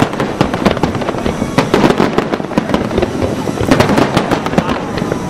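Fireworks display: many aerial shells bursting in quick succession, a dense, continuous crackle of bangs and pops with no pauses.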